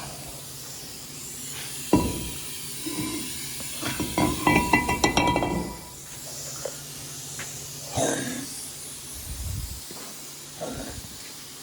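Metal knocks and ringing clinks from hand tools and brake parts being worked at a car's front hub: a sharp knock about two seconds in, a quick run of clinks around four to five seconds, and another knock near eight seconds, over a steady hiss.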